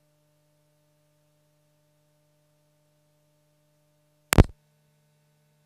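Quiet room with a faint steady hum, broken about four seconds in by one sharp click.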